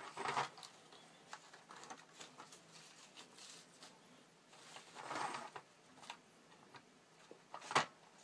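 Quiet handling noises as masking material is peeled off a plastic model tank: light rustles and small clicks, a longer rustle about five seconds in, and a sharp click near the end.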